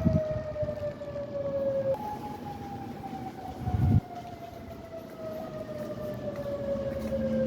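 Modulator electronic outdoor warning siren sounding on test: a steady tone that slowly falls in pitch, jumps back up about two seconds in, and falls again. A low rumble underneath swells to a thump about four seconds in.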